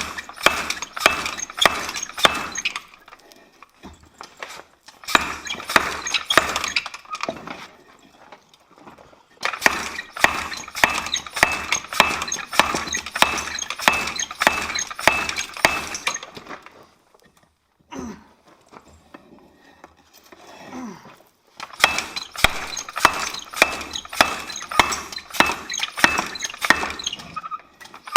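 Treadle hammer striking a large bent steel dozer part to straighten it: fast runs of sharp ringing metal-on-metal blows, several a second, in four bursts with short pauses between them.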